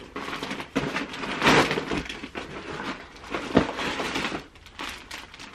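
A mailed package being opened by hand: irregular rips, crackles and crinkles of the packaging, with a sharp rip about a second and a half in and another near three and a half seconds.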